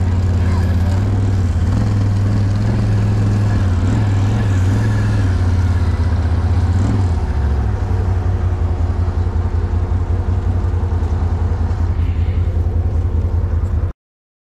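ATV engine running at low speed with a steady low hum, its pitch shifting slightly in the first half before it settles into an even, pulsing idle; the sound cuts off suddenly near the end.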